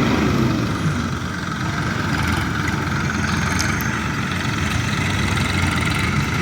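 New Holland tractor's diesel engine running steadily as the loaded tractor pulls away.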